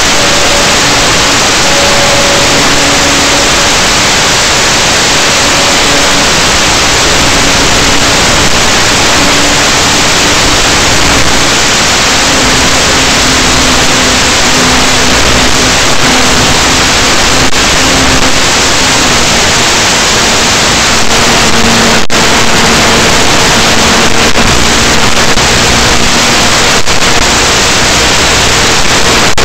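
Loud, steady hiss of static from an analog FPV video receiver's audio channel, with a faint hum underneath that shifts in pitch now and then.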